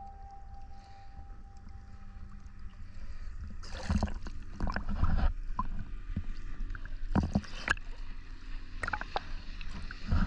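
Choppy sea water splashing and slapping against a camera held at the water's surface, in irregular bursts from about four seconds in. Under it runs a low steady drone from the outboard motor of an approaching inflatable boat.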